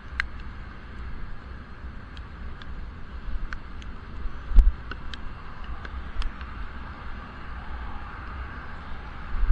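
Riding noise from a bicycle in the rain, muffled by an action camera's waterproof case on a helmet: low wind buffeting and steady tyre hiss on a wet road, with scattered sharp ticks and a heavier thump about four and a half seconds in.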